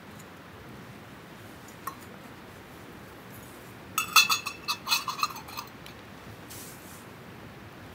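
A quick run of light metallic clinks and rattles, each with a short ring, about halfway through, after a single click a couple of seconds earlier, over a steady faint hiss.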